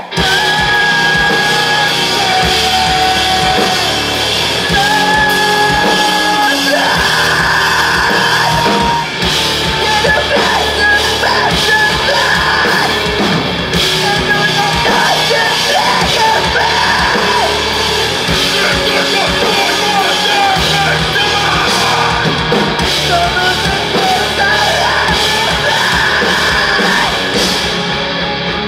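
A live rock band playing loud: electric guitars, bass guitar and a drum kit, with a lead singer's voice over them.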